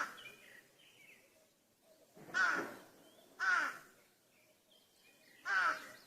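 A crow cawing: three harsh caws, the first two about a second apart and the third two seconds later. Faint chirps of small birds in the background.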